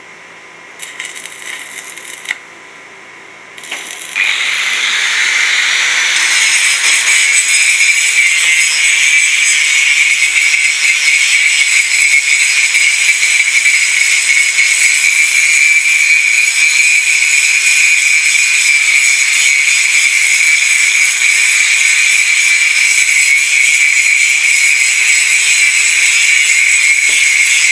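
Stick (SMAW) welding arc. The electrode scratches on the plate a few times, the arc catches about four seconds in, and it then crackles and hisses steadily.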